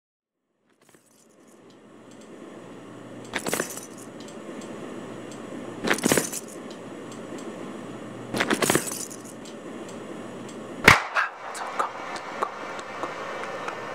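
Three short bursts of clinking, rattling impacts about two and a half seconds apart over a low steady hum that fades in, then a single sharp crack a little before the end, followed by scattered light clicks.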